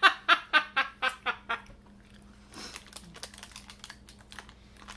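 A woman laughing, a run of about seven quick ha-ha pulses that grow weaker and die away after a second and a half, followed by faint scattered clicks.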